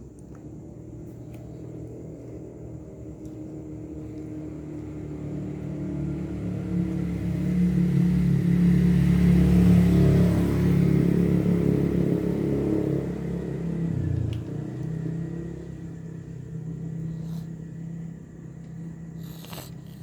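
A motor vehicle's engine drawing near, loudest about halfway through, then fading away, its pitch dropping a little after the peak.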